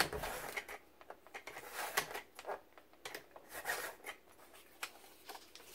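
Sliding paper trimmer cutting card stock: the blade carriage is run along its rail, amid soft scrapes, clicks and rustles of the card being handled. A sharp click right at the start.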